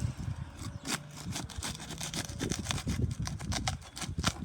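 Asphalt roof shingle being pried and pulled loose, a run of irregular scraping, crackling and snapping sounds as the stuck, sealed-down shingle resists and tears.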